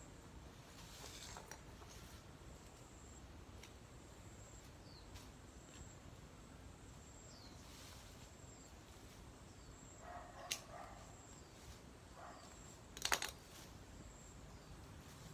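Quiet outdoor background with soft rustling of leafy branches as leaves are picked off their stems, and a few faint high bird chirps. About ten seconds in there is a brief rustle, and about thirteen seconds in a sharp crackle, the loudest sound, typical of a stem snapping or a handful of branches being handled.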